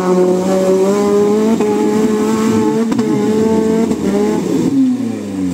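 Maruti Gypsy's engine held at high revs under load as the 4x4 climbs out of a muddy water pit, the revs steady for several seconds and then dropping away near the end.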